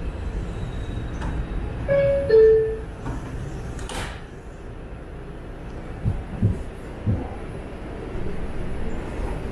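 New York City subway train's door chime, two descending tones about two seconds in, followed by a sharp click near four seconds and the steady rumble of the train pulling out of the station, with a few low knocks around six seconds in.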